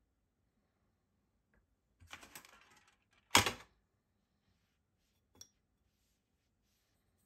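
A short rattle of small hard objects about two seconds in, then one sharp clack, the loudest sound, and a light tick a couple of seconds later: drawing tools being handled as a paintbrush is picked up.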